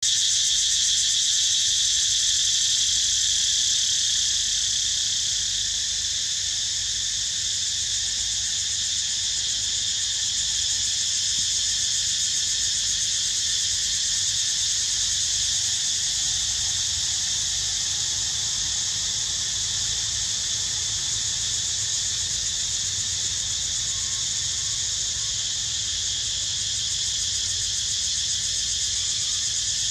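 A steady, high-pitched chorus of insects buzzing without a break, with a faint low rumble underneath.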